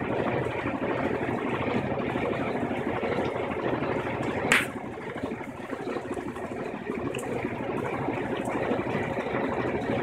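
Electrolux LDD16 top-load washing machine in its final spin cycle: the tub spins with a steady rushing whir. About halfway through there is one sharp click, and the sound dips slightly for a moment after it.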